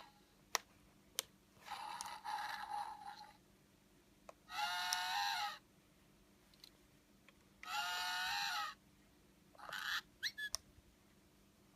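Recorded animal calls played through a children's sound book's small speaker, about four separate calls a couple of seconds apart, each lasting around a second. Two sharp clicks come just before the first call.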